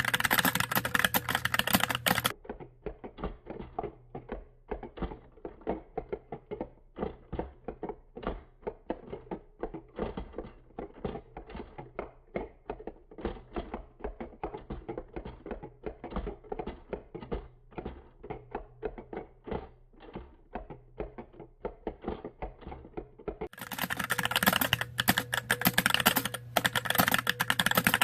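Fast typing, over 100 words per minute, on a GH60 mechanical keyboard with light 35g Gateron Clear linear switches on a CNC aluminium plate. About two seconds in it turns into a long slowed-down stretch of spread-out, duller keystrokes, then returns to full-speed clatter near the end.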